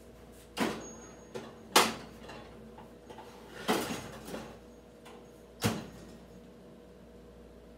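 Oven door and rack being handled as a dish is put back into the oven: a series of about six sharp clunks and knocks, the loudest about two seconds in.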